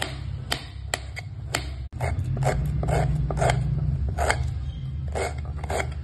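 Kitchen knife cutting through potato and then red onion on a steel plate: each stroke ends in a sharp click of the blade on the metal, about two a second. A steady low hum runs underneath, with a brief break about two seconds in.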